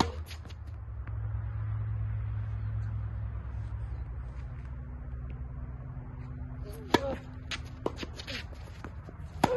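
Tennis ball struck with a racket: a sharp pop at the start, another about seven seconds in and a third near the end, over a steady low rumble.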